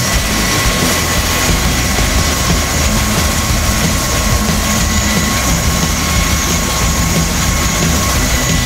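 Bell Boeing V-22 Osprey tiltrotor running on the ramp in helicopter mode, its twin turboshaft engines and proprotors making a loud, steady rumble with a steady high whine over it.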